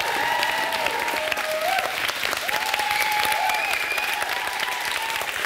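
Studio audience applauding steadily at the end of a song, with drawn-out cheering voices rising and falling over the clapping every second or so.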